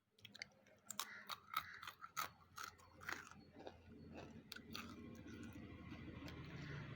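A person biting and chewing wet slate chips: a quick run of sharp, gritty crunches in the first half, then softer chewing.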